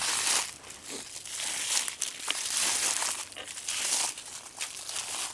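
Boot footsteps crunching through ice-crusted snow and frozen dry leaves, a loud crunch with each step of walking. The icy crust left by an ice storm makes every step noisy.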